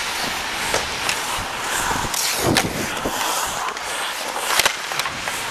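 Ice skate blades scraping and carving on the rink surface, heard close up through a helmet-mounted camera, with sharp knocks from hockey sticks or puck: one about halfway through and a quick pair near the end.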